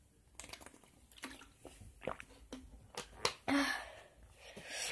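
A scatter of small, sharp clicks and soft rustling noises close to the microphone, with a brief breathy swell about three and a half seconds in and again near the end.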